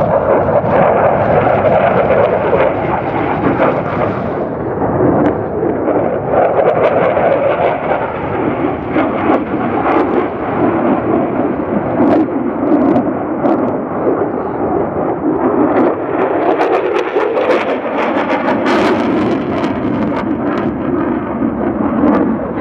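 F-16 fighter jet passing overhead with loud, steady jet engine noise, breaking into a crackle about three-quarters of the way through.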